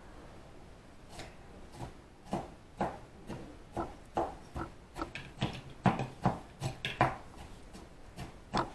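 Irregular sharp taps and knocks of a kitchen utensil during food preparation, about two a second, starting about a second in and growing louder past the middle.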